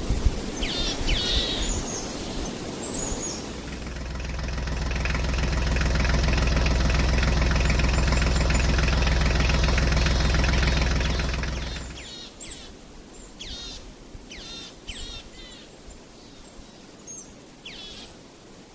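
Birds chirping in short, falling calls; then, about three seconds in, a steady, low engine-like hum from the miniature toy tractor swells up. It runs for about eight seconds and fades out, and the bird calls come back.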